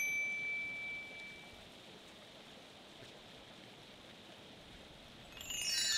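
A single bright ding rings out and fades over about a second and a half, then a faint steady hiss. Near the end a shimmering chime of several high bell-like tones swells in.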